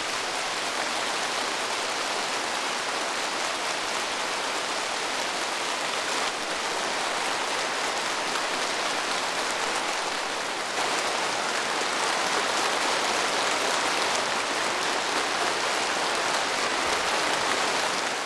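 A large crowd applauding in a long, steady ovation, which gets a little louder about eleven seconds in.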